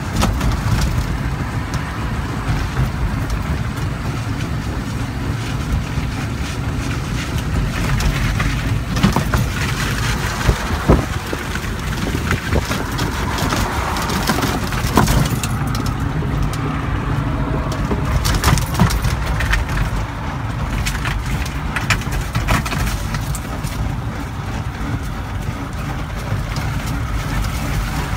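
Organic Transit ELF pedal-electric three-wheeler rolling along a concrete sidewalk: a steady low rumble from the wheels and body, with scattered sharp knocks and rattles as it jolts over bumps, most of them in the middle stretch.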